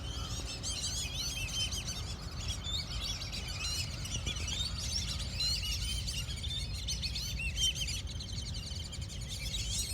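A flock of birds chirping steadily, many short, high calls overlapping, over a low, steady rumble.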